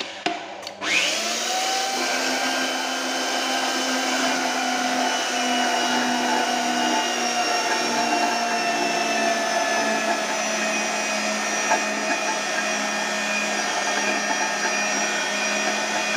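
Electric pipe threading machine's motor spinning up about a second in, with a rising whine, then running steadily with a level hum and whine while the die head cuts a thread on a galvanized iron pipe.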